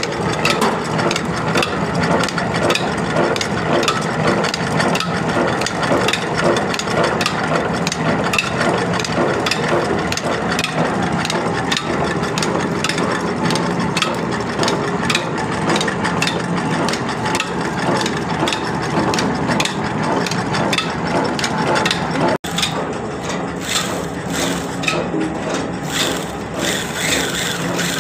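Belt-driven oil expeller running steadily, pressing oilseed and discharging broken oil cake, with a dense clatter of knocks over the drive's mechanical hum. About three-quarters of the way through the sound breaks off for an instant and gives way to a different mechanical rattle.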